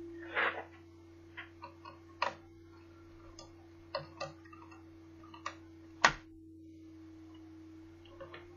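Irregular clicks and taps of small tools and plastic parts being handled while a Toshiba Satellite L650D laptop is taken apart, with a short scrape near the start and the sharpest click about six seconds in, over a steady low hum.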